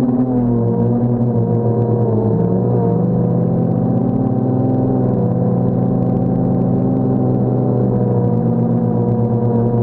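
DJI Phantom quadcopter's motors and propellers humming steadily, several pitches drifting slowly up and down as it holds and edges along in the air, over a low rumble of wind on the microphone.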